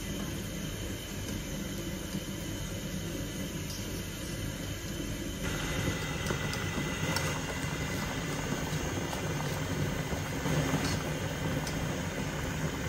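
Water boiling in a frying pan on a gas cooker, a steady bubbling hiss, while a metal spoon stirs pap in a steel bowl set in the water, with a few light scrapes. The boil grows a little louder about five seconds in.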